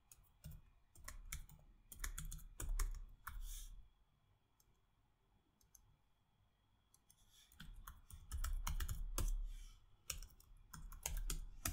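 Typing on a computer keyboard: two runs of rapid keystrokes with a pause of about three seconds between them.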